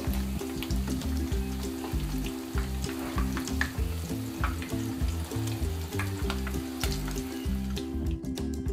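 Egg-white-coated tuna kebabs shallow-frying in hot oil with a steady sizzle, and a wooden spatula clicking and scraping against the pan now and then. Soft background music plays under it, and the sizzle drops away near the end.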